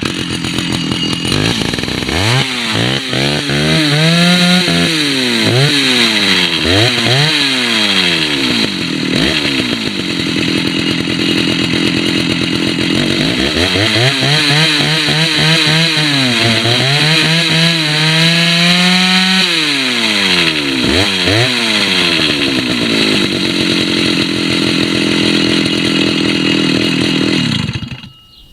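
Vintage Stihl two-stroke chainsaw running, its throttle blipped in a series of quick revs a few seconds in and again about halfway through, settling back to idle between them. It stops near the end.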